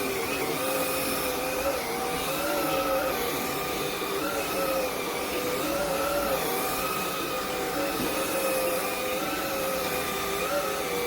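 Shark cordless stick vacuum running, its motor giving a steady whine over a rushing hiss. The pitch wavers slightly up and down as the load on it changes.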